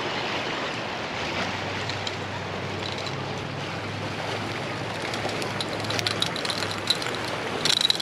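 Small sea waves washing against granite jetty boulders as a steady rush, with a faint low hum underneath through the middle. Near the end comes a quick cluster of sharp clicks.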